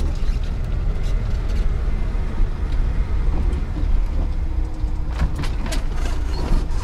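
A road vehicle driving: a steady low rumble of engine and road noise, as heard from inside the car.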